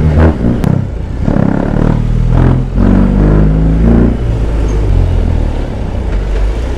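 BMW R18's big boxer-twin engine accelerating hard through the gears: the pitch climbs in each gear and drops at each upshift, three times, then it runs steadier for the last couple of seconds.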